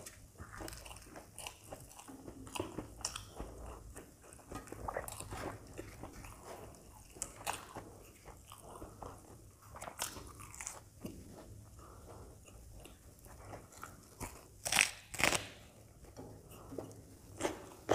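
Close-miked chewing of crisp deep-fried puri dipped in potato curry, with frequent small crunches and crackles. Two louder crunches come close together about fifteen seconds in.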